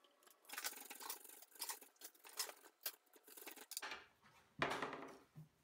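Vegetable peeler scraping the skin off a raw horseradish root in quick short strokes. Near the end the root is rubbed across a flat cheese grater in a longer, rougher scrape.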